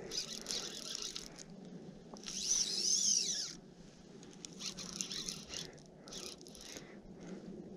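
Close rustling and short scraping strokes as fly line and rod are handled right at the mic, with one louder whir about two seconds in that rises and then falls in pitch for about a second and a half.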